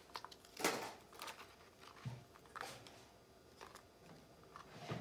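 Faint handling noise of small paper picture cards being peeled off and pressed onto a file-folder page: a few short rustles, the clearest about half a second in.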